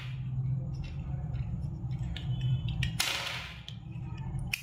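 Small plastic-and-metal clicks as button-cell batteries are prised out of a digital thermometer with a small screwdriver, with one louder sharp click about three seconds in and another near the end, over a steady low hum.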